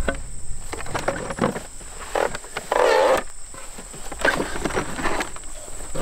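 Hand-built wooden manual hay baler creaking and clicking as its lever is pressed down to compress the hay, with a longer, louder creak about three seconds in. Field insects chirp steadily behind it.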